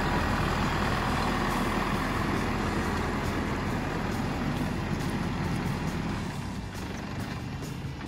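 Kubota SL600H tractor's diesel engine running steadily, dying down over the last couple of seconds.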